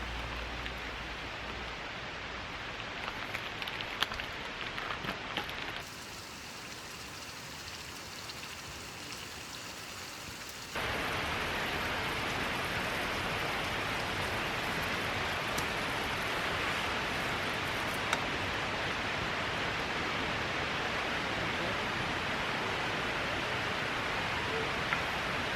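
Steady hiss with a light patter and occasional small clicks, dropping quieter about six seconds in and stepping abruptly louder about eleven seconds in.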